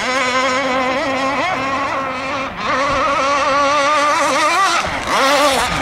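Two-stroke gas engine of an RC rigger powerboat running at high speed, a high, wavering whine. Its pitch dips briefly about two and a half seconds in and again near five seconds, then climbs back.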